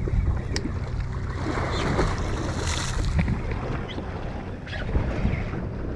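Steady low drone of a fishing boat's engine with wind buffeting the microphone and water washing around the hull, with a few light clicks.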